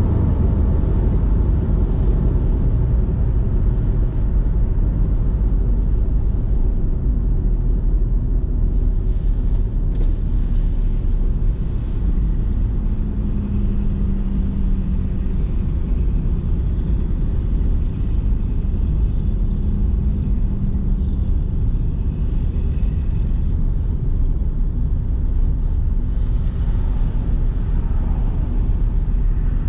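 Steady low rumble of tyre and engine noise heard from inside a car's cabin while it cruises along a highway.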